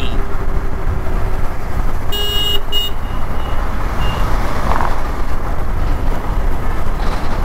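Motorcycle riding in city traffic: steady rumble of engine and wind noise. About two seconds in, a vehicle horn honks twice, a half-second toot and then a short one.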